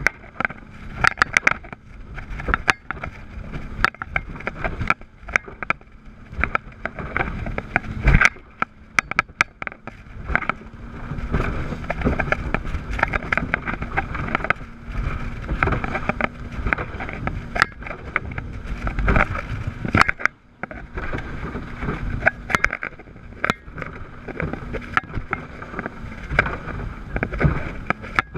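A rigid inflatable speedboat driven by twin Yamaha 350 hp four-stroke V8 outboards running at speed, with a steady engine drone under rushing water and air. Frequent sharp thuds and splashes come as the hull slaps through the chop.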